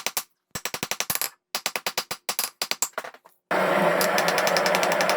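Rapid clusters of hammer blows on a hot railroad spike, about eight strikes a second, separated by brief pauses. About three and a half seconds in, a steady machine noise with a fast, even knocking rhythm starts and carries on.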